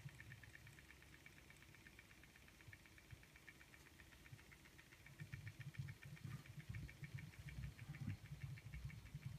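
Model Stirling hot-air engines running, their small mechanism giving a faint, fast, even ticking. Soft low thumps join about halfway through.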